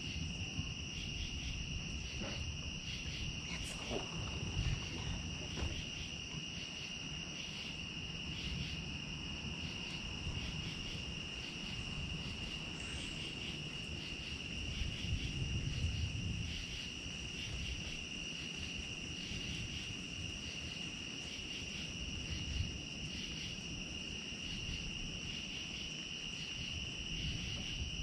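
A chorus of crickets trilling steadily in a high, finely pulsing drone, over a low rumbling noise.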